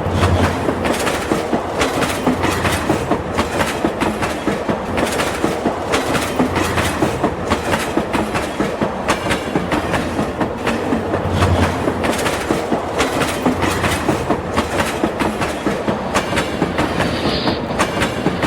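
Toy train running along its track with continuous rapid clacking.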